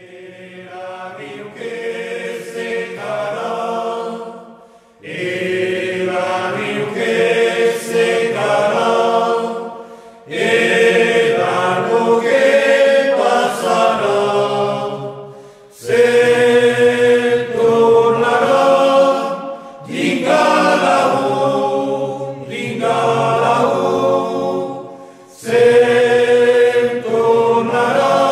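Background choral music: several voices singing a slow chant in phrases of about five seconds, each followed by a short breath-like pause.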